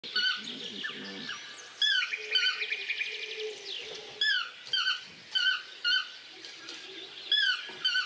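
Yellow-throated (chestnut-mandibled) toucan calling: a series of short calls that rise and then drop, repeated about every half second to second from about two seconds in. Other birds chirp and trill behind it.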